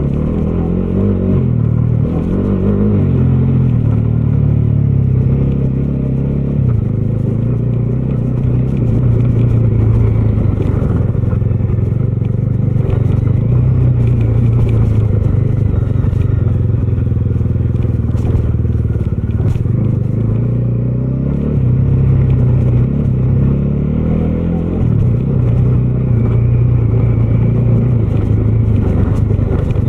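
Bajaj Dominar 250's single-cylinder engine running under way, its note dipping and climbing with throttle and gear changes a couple of seconds in and again about two-thirds of the way through.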